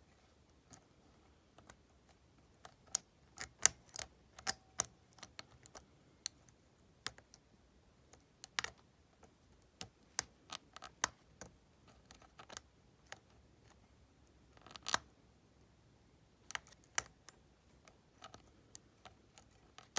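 Hook pick and tension wrench clicking and scraping irregularly in the pin-tumbler keyway of an Ace disc padlock, the pick working past the warding. Small sharp ticks come a few at a time, with a brief scraping cluster about fifteen seconds in.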